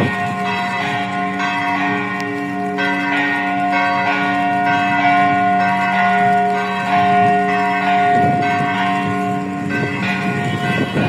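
Greek Orthodox church bells ringing together: several bells of different pitches struck again and again, their tones overlapping and ringing on.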